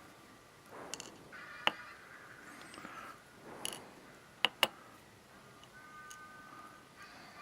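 Small, sharp metallic clicks and taps as the pins are worked out of chamber 3 of a Medeco Biaxial lock core during disassembly. The loudest is a quick pair of clicks about four and a half seconds in.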